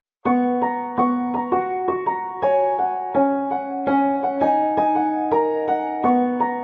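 Background music: a gentle piano melody of single notes played at a moderate pace.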